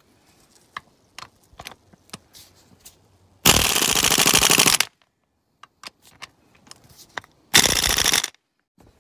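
Impact wrench hammering in two bursts, about a second and a half long and then a shorter one about three seconds later, tightening the new crankshaft pulley bolt on a Mini Cooper S engine. Small clicks and knocks of the socket and extension being handled come before and between the bursts.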